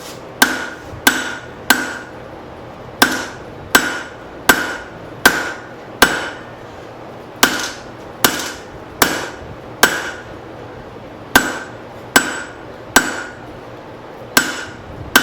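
Hand hammer striking hot leaf-spring steel on an anvil, in runs of four to six blows with short pauses; each blow rings briefly with the same high tone. The blows set an isolation in the bar where the knife's handle will end.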